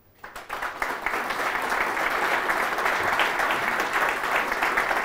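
Audience applause in a lecture hall: many people clapping, starting just after the talk ends, building over the first second, then holding steady.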